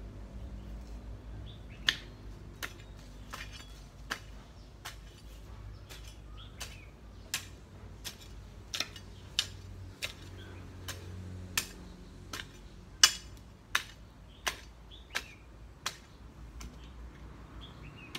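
A long-handled garden hoe chopping into bare soil, a sharp knock with each stroke, a bit more than one a second, stopping shortly before the end.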